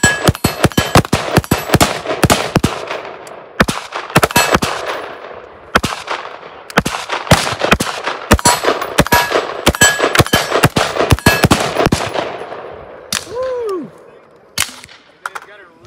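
Short-barrelled AR-style carbine fired unsuppressed in rapid semi-automatic strings of several shots a second, with brief pauses between strings. The shooting stops about three seconds before the end, followed by a short falling whine and a few sharp clicks.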